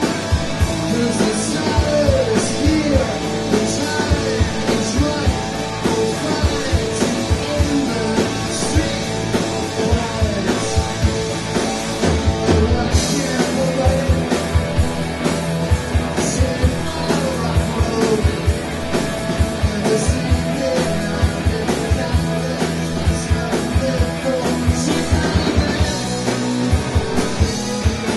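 A rock band playing live with electric guitars and a drum kit. A lead electric guitar plays bending, curving lines over a steady drum beat.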